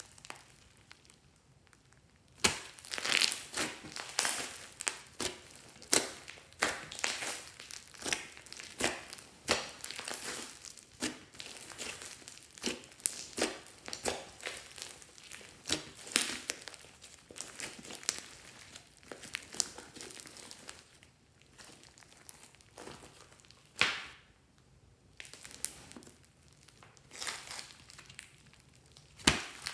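Hands squeezing, stretching and kneading a soft, foamy slime, giving irregular wet crackles and sharp little clicks, with a quieter stretch near the start.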